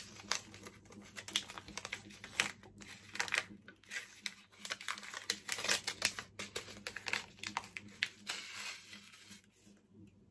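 Black paper wrapping being crinkled and rustled by hand as a small, tightly wrapped package is unwrapped: many short, irregular crackles that die down near the end.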